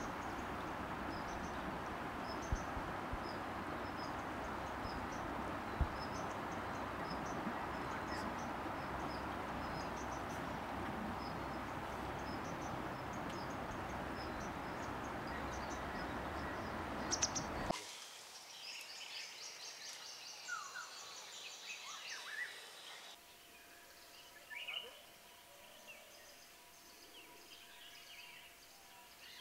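Wild natural ambience: a steady hiss with a bird or insect repeating short high chirps, then an abrupt change about 18 seconds in to quieter surroundings with several different birds calling.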